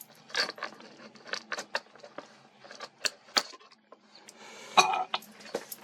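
Scissors snipping to cut open a phone's retail box: a string of irregular sharp clicks and snips, with a stretch of rustling packaging and a louder snap near the end.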